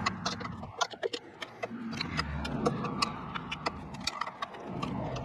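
Irregular small metallic clicks and taps from a hand tool working on the air-line fittings at an air-suspension valve block.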